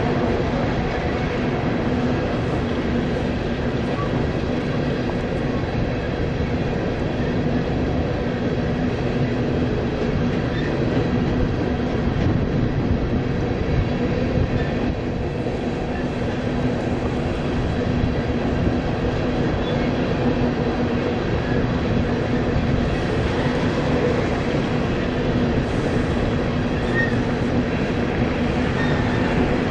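Freight train of coal cars rolling steadily across a steel truss bridge: a continuous rumble of wheels on rail with a steady low hum running through it.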